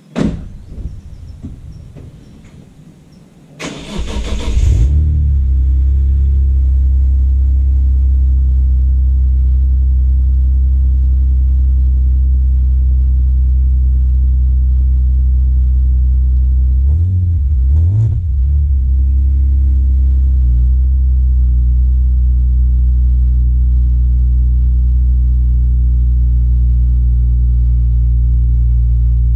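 BMW Z4 M Coupe's 3.2-litre straight-six cold-starting: a sharp knock at the start, then about four seconds in the starter cranks and the engine catches. It settles into a loud, steady fast cold idle, and the idle wavers once briefly partway through.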